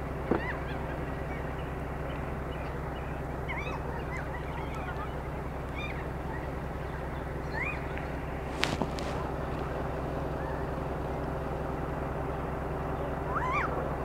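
New Zealand parrots calling: short calls that glide up and down in pitch, scattered through, over a steady low hum. Two sharp knocks, one just after the start and one a little past halfway.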